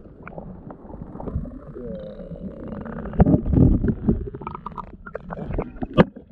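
Sea water heard from underwater: a muffled low rushing and bubbling, loudest about three to four seconds in. A few faint whistle-like glides come about two seconds in, and a sharp splash near the end as the microphone breaks the surface.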